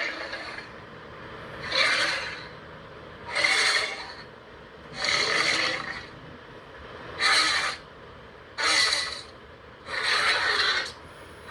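Monster creature sound effect: a series of short, raspy, hissing breaths or snarls, about six in a row, each under a second and roughly a second and a half apart.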